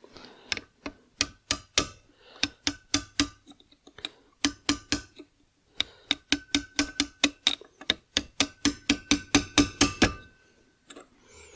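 Quick, evenly paced taps of a small hammer on metal, about three to four a second in three runs with short pauses, each tap ringing briefly: the key is being tapped into the keyway for the clutch of a Vespa smallframe engine.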